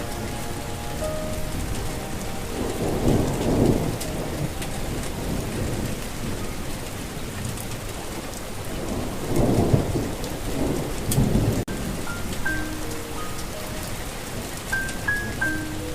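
Steady rain with two rolls of thunder, one about three seconds in and a longer one around ten seconds in. Sparse single notes of a melody sound over the rain, more of them near the end.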